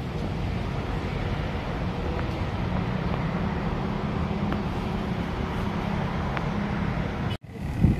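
Steady city traffic rumble, with no single vehicle standing out; it cuts off suddenly near the end.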